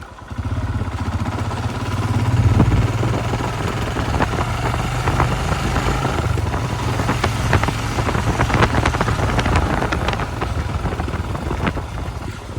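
Royal Enfield Himalayan motorcycle running under way, its single-cylinder engine a steady low rumble that comes up loud about half a second in. Scattered sharp clicks and knocks sound over it through the second half.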